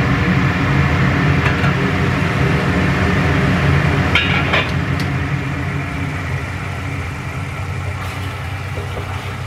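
Steady hum and simmer of a stainless steel pan of chili sauce cooking on a glass-top hob, with a short metallic clatter about four seconds in as the lid is lifted off and a few light knocks of a spatula stirring near the end.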